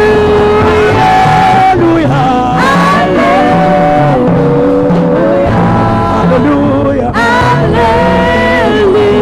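Live gospel worship music from a band: held melody notes over a moving bass line, steady and loud.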